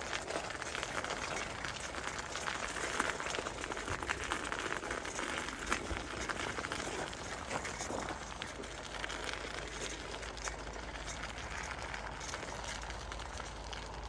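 Bicycle tyres rolling over an icy, snow-crusted bike path, a steady gritty crunching and crackling with many small ticks. A low rumble grows slightly near the end.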